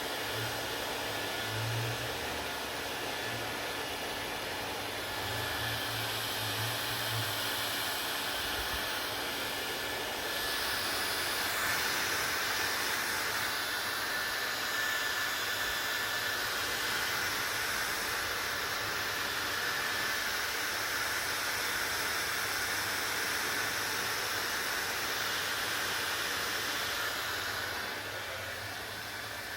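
Hair dryer running steadily: a continuous blowing hiss over a low motor hum. It grows louder and brighter about ten seconds in and eases back near the end.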